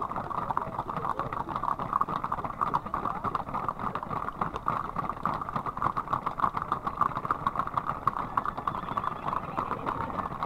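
Many horses' hooves clip-clopping on an asphalt road as a large loose herd moves past, a dense, unbroken clatter of overlapping hoofbeats.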